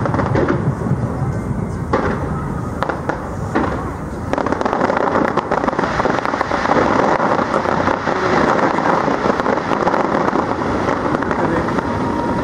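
Fireworks display: a few sharp bangs in the first seconds, then from about four seconds in a dense, continuous crackling as a wide spread of crackling stars bursts at once.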